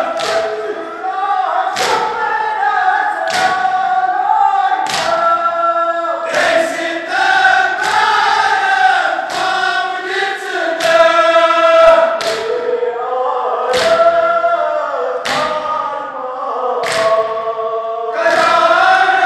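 A crowd of male mourners chanting a nawha together in unison, with a loud, rhythmic hand-on-chest beat (matam) struck about once every second and a half.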